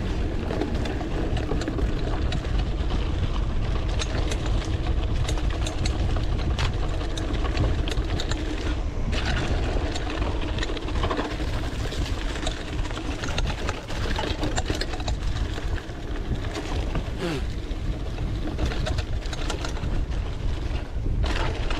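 Mountain bike riding down a dirt downhill trail: tyres rolling over dirt and leaf litter, with many small clicks and knocks from the bike rattling over the bumps, under a steady low rumble of wind on the microphone.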